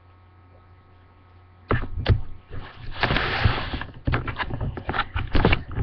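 Handling noise on the computer's built-in microphone: after a faint steady hum, a string of sharp knocks and thumps begins about two seconds in, with a brief burst of rustling, as someone sits down and moves close to the webcam.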